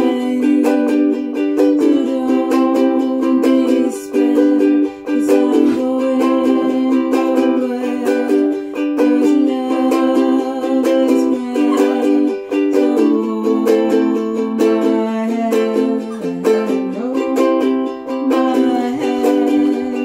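Ukulele strummed in a steady rhythm, the chords changing every couple of seconds.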